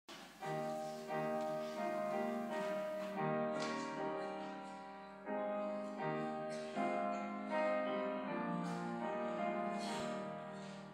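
Piano playing a slow passage of chords, a new chord struck roughly every second and left to ring, softening near the end.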